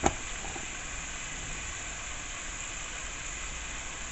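Buffalo wing sauce sizzling steadily as it cooks over the heat, with one sharp knock right at the start.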